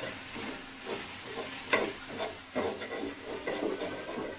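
Diced potatoes and spices frying with a steady sizzle in a metal pan, stirred with a spoon that scrapes against the pan, with one sharp clink a little under two seconds in.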